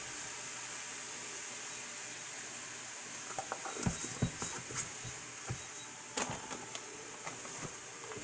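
Chopped beef sizzling in a frying pan, a steady hiss. From about three seconds in, scattered light clicks and knocks.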